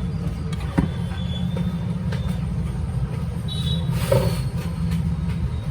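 A steady low mechanical rumble, like a nearby engine, with a sharp click under a second in and a few lighter taps.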